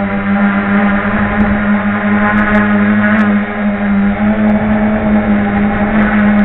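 Small FPV quadcopter's motors and propellers running with a steady buzzing hum, picked up by the onboard camera's microphone.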